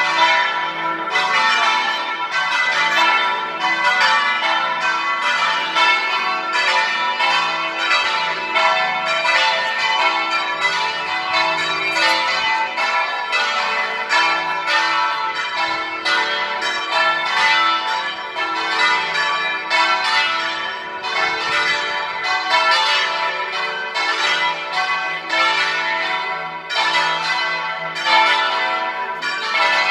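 Church tower bells ringing a festive peal: several bells struck in quick, continuous succession, about two or three strikes a second, their ringing tones overlapping.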